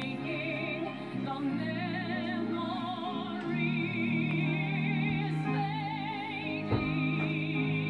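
A woman sings long, sustained notes with a wide vibrato over steady musical accompaniment, heard through a television's speaker. A single brief thump sounds near the end.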